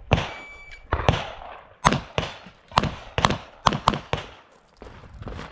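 Gunshots fired in quick succession, about nine in all, some in close pairs and some spaced apart, each followed by a short echo.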